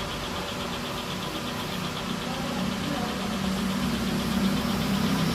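Ceiling fan running, with a steady motor hum that grows a little louder near the end and a faint, fast, even ticking.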